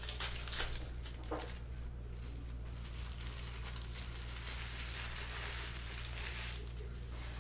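Foil wrapper of a trading-card pack crinkling and tearing open, a few short crackles in the first second or so, over a steady low hum.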